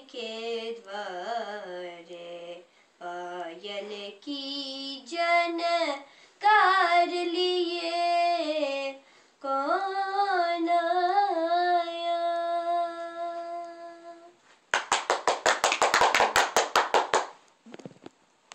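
A girl singing unaccompanied, closing the song on a long held note. About two seconds of hand clapping follow near the end.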